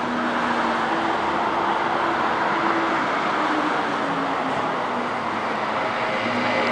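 City street traffic noise with the engine hum of an approaching city bus, growing a little louder near the end.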